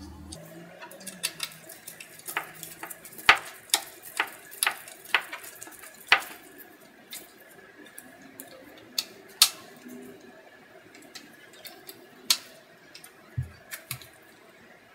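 Irregular sharp metallic clicks and clinks of a hex key working the 4 mm Allen bolts on the outboard housing of an Agilent IDP7 dry scroll pump as the bolts are snugged down, the loudest a few seconds apart.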